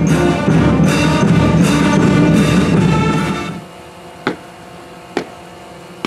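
Band music with drums, loud and full for about three and a half seconds, then dropping to soft held notes marked by a single sharp beat roughly once a second.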